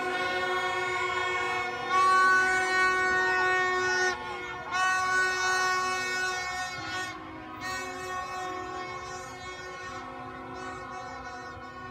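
Several horns held in long, overlapping blasts over a cheering, shouting crowd. The horns are loudest around two seconds in and ease off in the last few seconds.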